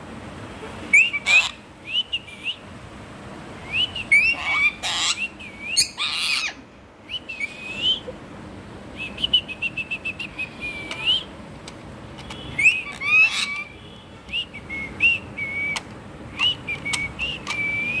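Pet parrots, a sun conure and a green parakeet, calling: repeated short whistles that rise and fall, a quick run of chirps about halfway through, and several short harsh screeches.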